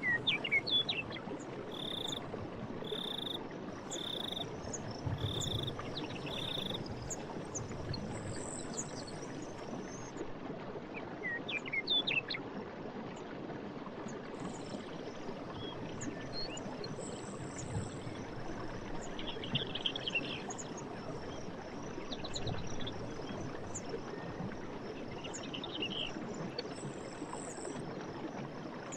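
Forest stream running with a steady rush, and birds calling over it: a run of five short notes about one a second early on, sharp chirps about twelve seconds in, and short trilled phrases near twenty and twenty-six seconds. A faint high pulsing chirr runs underneath.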